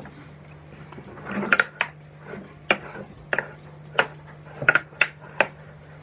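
Metal spoon scraping and clinking against a ceramic plate while stirring a moist bulgur mixture, with about eight sharp clinks at irregular intervals.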